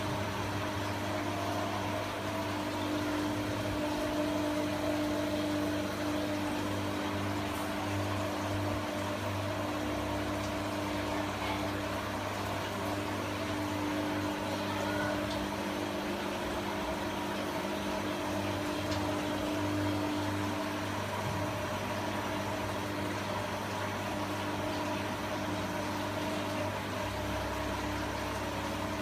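Steady electrical hum of running aquarium equipment: a low buzz with several steady tones over a hiss, not changing.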